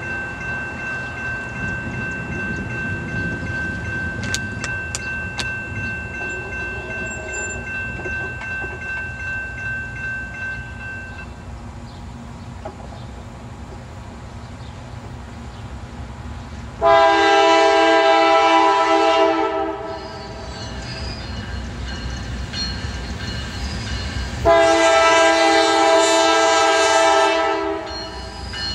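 Horn of an approaching Norfolk Southern Dash 9-40CW diesel locomotive sounding two long blasts, the first about two-thirds of the way in and the second near the end, the opening of the grade-crossing signal. Before the horn there is a low rumble of the train coming closer.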